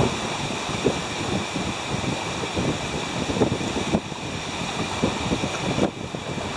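Wind buffeting the microphone in uneven gusts, a constant low rumble with a hiss above it.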